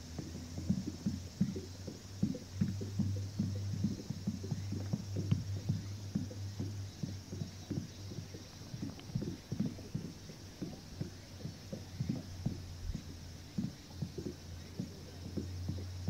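A run of soft, irregular low knocks, several a second, over a steady low hum.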